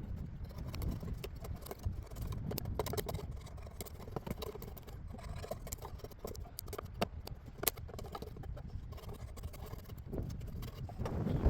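Hand shave cutting an ash axe handle, irregular scraping strokes and small knocks of the blade on the wood, over a steady low rumble of wind on the microphone.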